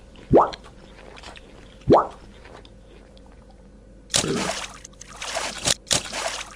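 Two brief, loud blips that rise in pitch, about a second and a half apart. From about four seconds in, wet cement slurry pours and splatters from a small steel bowl into a sand trench in several splashy bursts.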